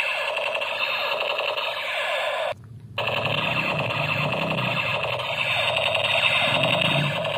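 Battery-powered light-up toy gun playing its electronic shooting sound effect, a fast-repeating siren-like warble. It cuts out for about half a second partway through, then starts again.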